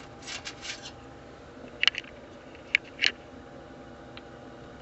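Steady low hum of a D5 water-cooling pump circulating coolant in a test loop. Brief rustling of handling in the first second, then three sharp clicks about two to three seconds in, like a metal blade knocking against the pump housing.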